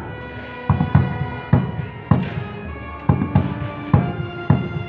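A large rope-tensioned procession drum beaten with a stick in a slow, uneven beat, about eight strokes, some of them in pairs. Under the strokes runs a long held note from a wind instrument.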